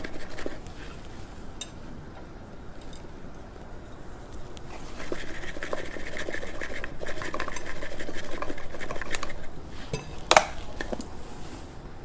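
Kitchen handling sounds from a spoon in a mixing bowl: light clinks and scraping as spices go onto the chicken, with one sharp clink a little before the end.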